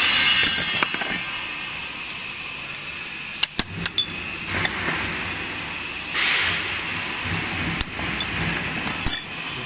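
Hammer striking a screwdriver held against the steel lock nut and washer of a pellet mill roller assembly: sharp metal clinks in small irregular clusters, with a short scrape about six seconds in.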